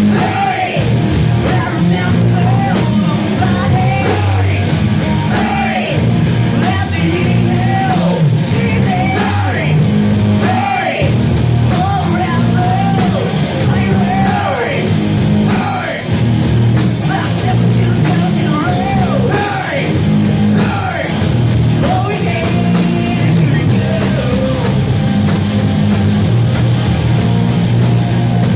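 Rock band playing live, with loud guitars, bass and drums under a sung, partly shouted lead vocal.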